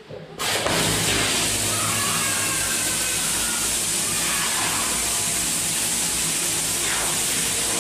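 Bosch Aquatak 125 pressure washer starting about half a second in and then running steadily: a loud, even hiss of the water jet over the hum of its motor and pump.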